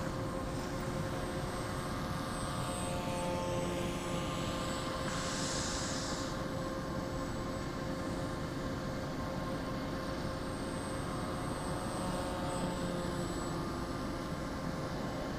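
Electric brushless outrunner motor and pusher propeller of a small foam RC plane whining steadily in flight, its pitch bending as it passes about three seconds in and again near twelve seconds, over a steady low rumble.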